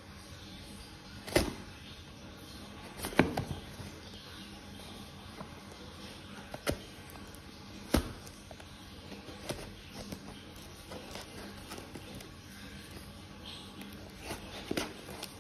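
A small knife slitting packing tape on a cardboard box, with the box handled: about half a dozen sharp taps and clicks spread through, with fainter scraping between them.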